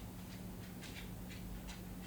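Light, irregular clicking, a few small ticks a second, over a faint steady low hum.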